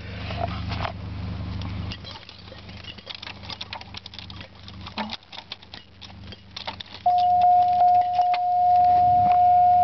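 Keys clinking and rattling at a 1996 Buick Century's ignition for its cold start. About seven seconds in, a loud steady high-pitched tone comes on suddenly and holds.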